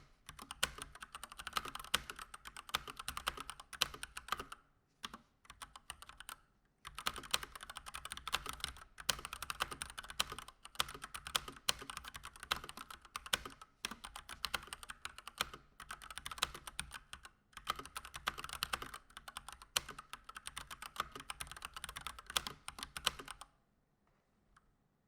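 Fast typing on a Keychron C1 mechanical keyboard with Gateron Red linear switches, stock with no mods: a dense clatter of key clicks in long runs with brief pauses, stopping about a second and a half before the end.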